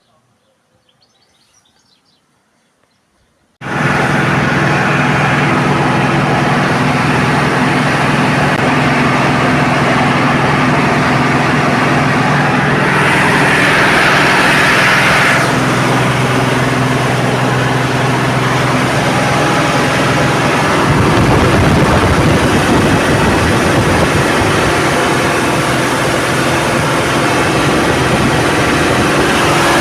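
A combine harvester's diesel engine running loudly and steadily, cutting in abruptly after a few quiet seconds. A higher hiss rises over it for a couple of seconds around the middle, and the engine's low note changes about two-thirds of the way through.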